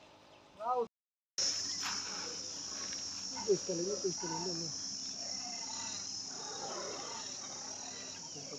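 Steady high-pitched drone of insects. A few faint voice sounds come and go around the middle.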